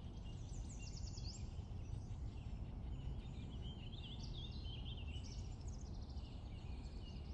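Faint outdoor ambience: small birds chirping and singing in short trills and chirps over a low, steady background rumble.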